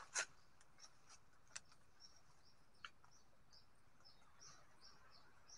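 Near silence: a brief rustle and a few faint clicks as a man grips and climbs a tree trunk, over faint high chirping repeated about twice a second.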